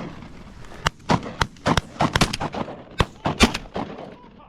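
A rapid volley of shotgun fire from several hunters' guns, about a dozen shots over roughly three seconds, some louder and closer than others.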